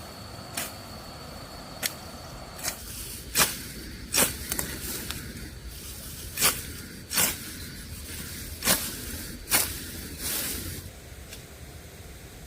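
A series of sharp knocks at irregular intervals, roughly one a second, loudest in the middle stretch.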